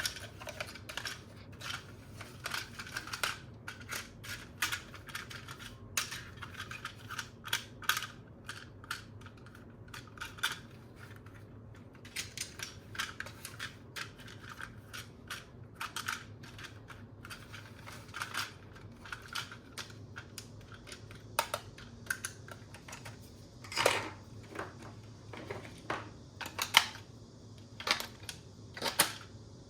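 Hard plastic toy parts and packaging being handled: irregular clicks and taps, with a few louder crackles near the end.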